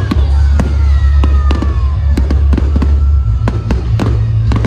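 Fireworks display: a rapid run of sharp bangs and crackles as shells burst in the air, many reports overlapping.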